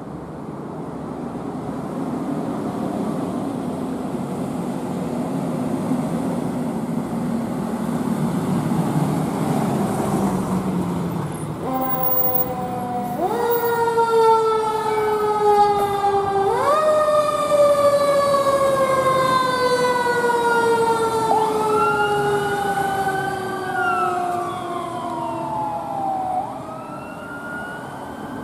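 Pierce fire engine's diesel engine pulling away and gaining speed, then its siren starts about twelve seconds in: a wail that sweeps up quickly and falls slowly, repeating. A second, higher siren tone sweeps up and down near the end.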